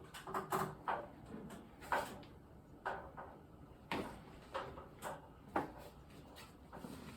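Irregular knocks and clicks, about a dozen over several seconds, of hardware and tools being handled during work on a patient lift.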